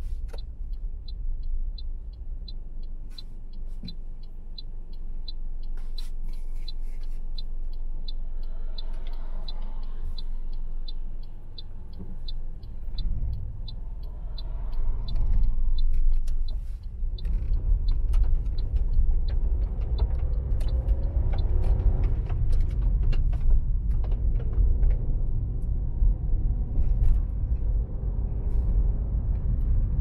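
Car driving with steady low road and engine rumble, and a quick, even ticking of the turn-signal indicator through the first half. The ticking stops about halfway through, and the rumble then grows louder.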